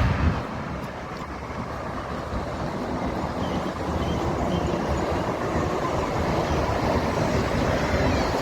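Passing toll-road traffic: a heavy engine's low drone falls away just after the start, leaving a steady rush of tyres and engines that slowly builds.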